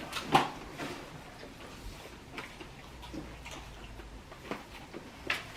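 A few scattered light clicks and taps from handling plates of leftover fried-chicken bones and skin at the table, over a faint low hum.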